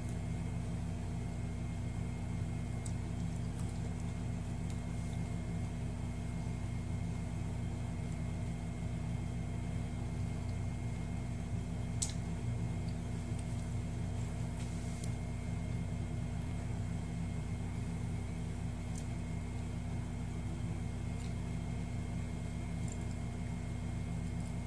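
Steady low mechanical hum, like a running appliance or fan, with a few faint clicks, the clearest about twelve seconds in.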